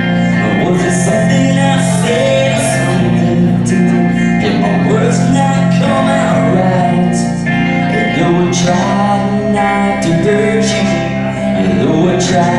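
A live band playing, with guitar and singing over a steady full backing.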